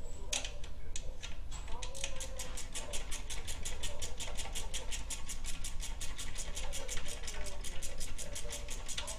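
Hand socket ratchet clicking rapidly and evenly, about seven clicks a second, as it is worked on a muffler mounting bolt.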